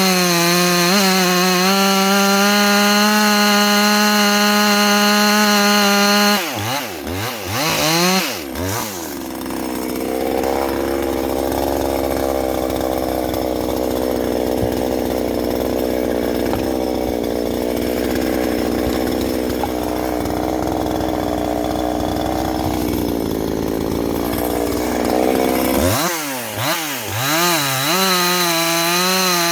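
Husqvarna 350 two-stroke chainsaw, ported, held at full throttle with a high steady note, then blipped up and down a few times. It sits at a lower, labouring pitch for about seventeen seconds while cutting through wood, then is blipped again and revs back up to the high note near the end.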